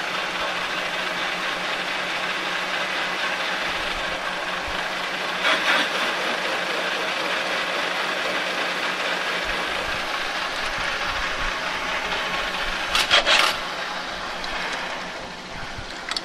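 Metal lathe running while the cutting tool machines the seal seat inside a cast-iron water pump housing, with a steady motor hum under the cutting. The cut finds a high and a low spot in the seat, a sign that the pump would have leaked. A couple of brief sharp metallic sounds about five and a half and thirteen seconds in, and the sound drops off near the end as the lathe stops.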